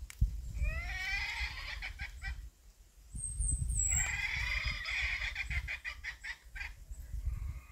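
A hen clucking in two quick runs of short rising notes, the first about a second in and the second from about three seconds to near seven, over a low rumbling noise.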